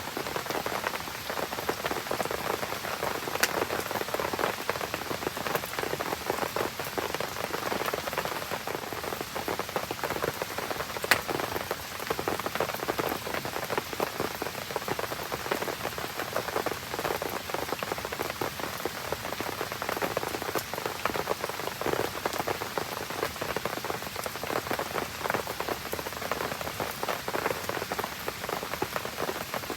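Steady rain pattering on surfaces around a burning campfire, a dense run of small ticks and drips. Two sharp pops stand out, one a few seconds in and a louder one about eleven seconds in.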